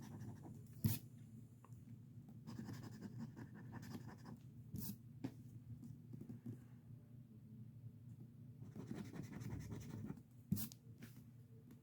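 Lottery scratch ticket being scratched off: faint rasping strokes, with a few sharp clicks about a second in, near five seconds and near the end.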